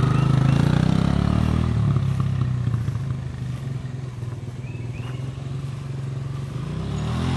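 Kawasaki KLX140G's air-cooled four-stroke single-cylinder engine running as the dirt bike rides away across a lawn. It fades in the middle and grows louder again near the end as the bike comes back.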